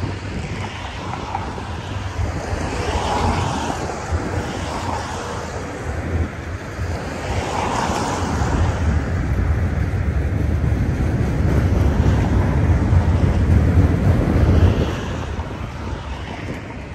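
Freight train's autorack cars rolling by on the rails: a steady rumble of wheels on track that swells and then eases off near the end, with wind buffeting the microphone.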